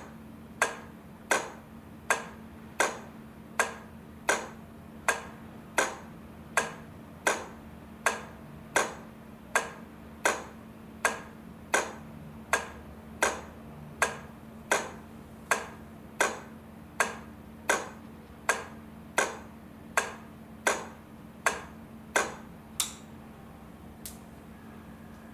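Flasher relay of a set of railway crossing lights clicking in a steady rhythm, about three clicks every two seconds, as the lights flash alternately; the clicking stops about 23 seconds in. A steady low hum runs underneath.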